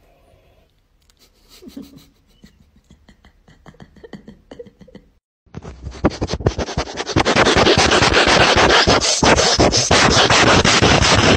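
Faint scattered scratches and taps from a kitten playing on a bedspread. After a cut about five seconds in, a dog sniffing hard right at the microphone: a very loud, rapid, rushing breath noise.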